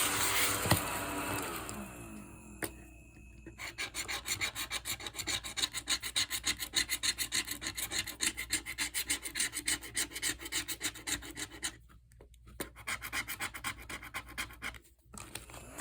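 A scratch-off lottery ticket being scratched: quick, repeated scraping strokes over the ticket's coating, about five a second, with a short break and then a few more strokes near the end.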